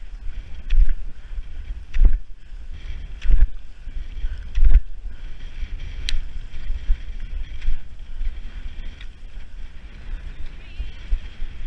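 Cross-country skis and poles striding on snow, a rhythmic stroke about every 1.3 seconds that is loudest for the first five seconds and then fainter, over steady wind rumble on the microphone.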